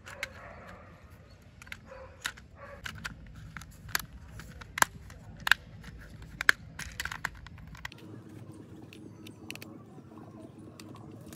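Hard plastic toy gun parts being handled and pressed together by hand: a run of sharp plastic clicks and taps, the loudest near the middle, thinning out in the last few seconds.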